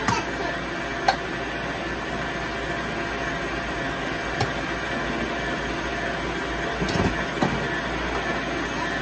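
Electric stand mixer running steadily, its wire whisk beating a thin liquid egg-and-milk mixture in a stainless steel bowl, with a few brief clicks.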